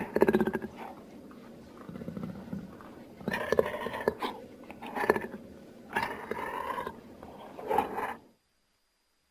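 Jaguar giving a series of about five short, rough calls, a few seconds apart, ending about eight seconds in.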